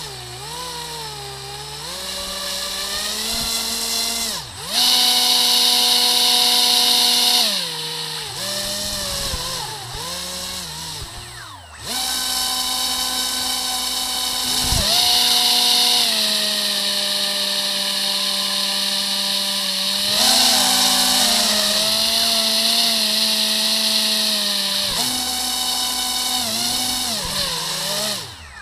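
Two quadcopter motors driving propellers on a homemade RC airboat: a loud, high-pitched electric whine that rises and falls in pitch as the throttle changes and holds steady for long stretches at speed. It dips briefly twice and cuts off at the end.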